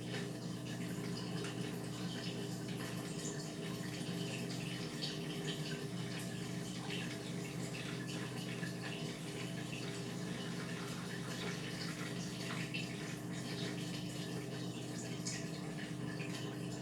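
Indesit MyTime washing machine running its Whites 40 programme: a steady motor hum under continuous sloshing and running water inside the drum.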